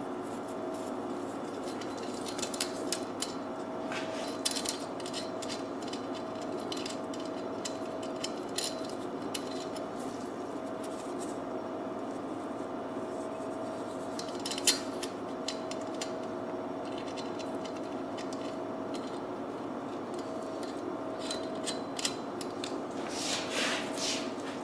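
Light metallic clicks and clinks of a bicycle chain and chain tool being handled as the chain is rejoined, with one sharper click about fifteen seconds in, over a steady background hum.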